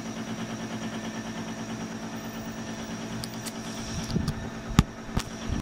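Air-conditioner hum picked up by a phone's built-in microphone a metre away: a steady drone with a faint high whine. Near the end come a few sharp knocks and clicks as a TRRS headset plug is pushed into the phone's jack.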